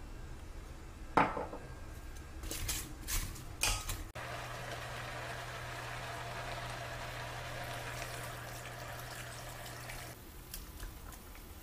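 A wooden spoon knocks and scrapes a few times against an enamelled cast-iron pot as sliced radish is stirred. From about four seconds in comes a steady rush of water being poured into the pot, stopping near the end.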